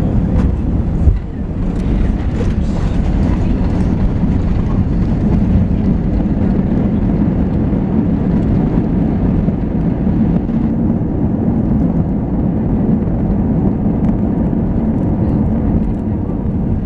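Jet airliner cabin noise as the plane speeds along the runway: a loud, steady low rumble of engines and wheels on the tarmac, with one sharp thump about a second in.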